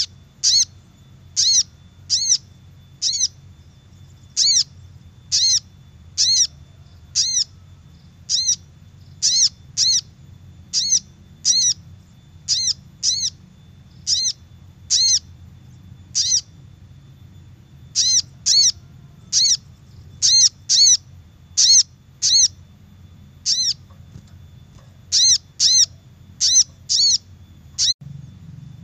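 Sogok ontong (crimson sunbird) lure call: short, sharp, high chirps repeated about once or twice a second in irregular runs with brief pauses.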